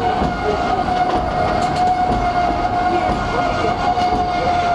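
Passenger train's steel wheels squealing against the rail on a tight curve: one steady, high-pitched squeal over the rumble and rattle of the carriages running on the track.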